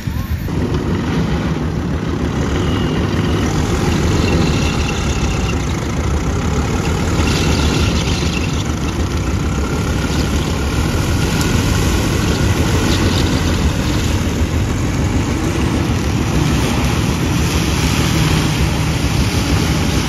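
A small four-wheel tractor's diesel engine runs steadily under load while driving a rear-mounted corn-stalk shredder through harvested corn stubble.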